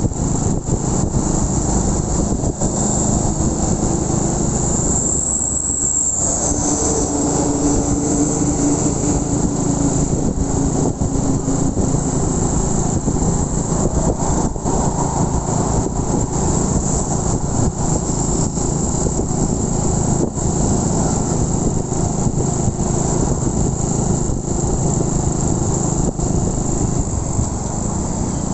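Honda Win 100's small single-cylinder four-stroke engine running steadily while the motorcycle is ridden, under a dense rumble of wind on the microphone.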